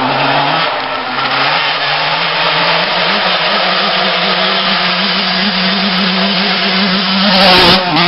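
Old two-stroke motocross bikes coming up the track with engines revving. The nearest bike gets louder and passes close by with a brief loud rush near the end.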